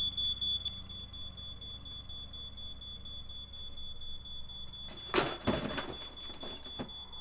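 A high, steady electronic tone, with fast beeping that stops about half a second in. A short cluster of knocks about five seconds in, over a low hum.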